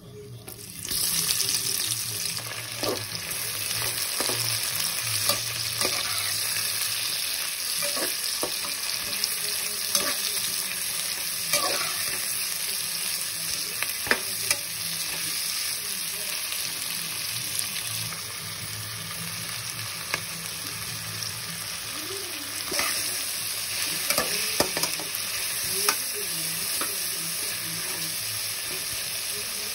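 Sliced onions sizzling in hot oil with whole spices in a pressure-cooker pot, the hiss starting suddenly about a second in. A metal slotted spatula stirs them, scraping and clicking against the pot now and then.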